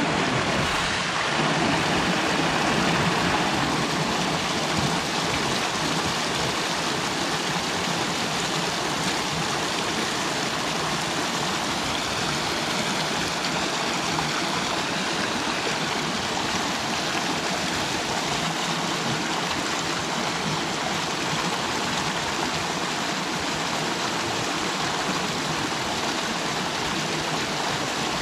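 Shallow mountain creek rushing and splashing over rocks, a steady, even rushing of water.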